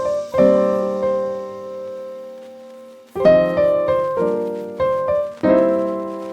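Background piano music: slow chords struck a few at a time, each left ringing and fading out.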